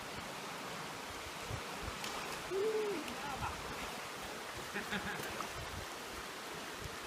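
Steady rushing of a shallow creek. About two and a half seconds in, a single brief low call rises and falls over it.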